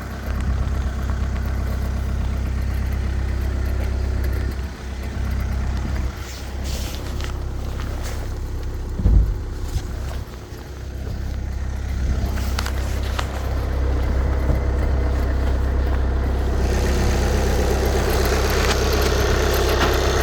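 2014 VW CC's 2.0 TDI common-rail four-cylinder diesel on a cold start, running with a clicking noise, with short clicks heard now and then. A single loud thump comes about nine seconds in, and the engine sound grows louder and fuller in the last few seconds.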